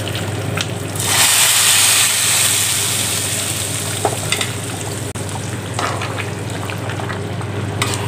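Hot sesame-oil tempering with mustard seeds, shallots and curry leaves poured from a small ladle into mutton curry: a loud sizzling hiss starts about a second in and dies down over a couple of seconds. After it comes a lower crackle with a few light clicks.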